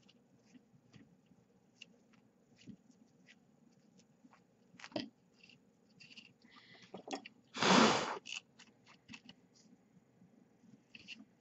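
Quiet handling sounds: a paper towel rustling and wiping sand off the parts of a brushless drone motor, with scattered light clicks of the small metal parts. One louder half-second rush of noise comes about two-thirds of the way through.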